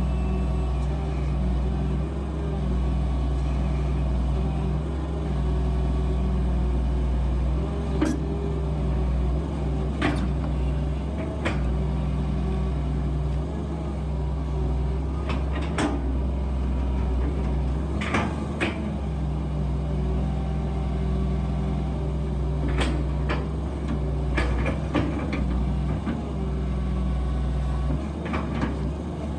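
Excavator's diesel engine running steadily while it digs at a big tree stump, with sharp knocks and clanks at irregular moments from the bucket and arm working against the stump.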